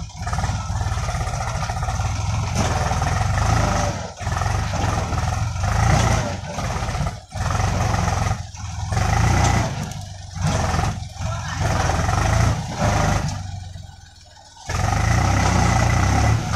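Diesel tractor engine running hard under load while hauling a loaded tipping trolley, its rear wheel digging into the soil. The sound drops briefly about 4 and 7 seconds in and again for under a second near 14 seconds.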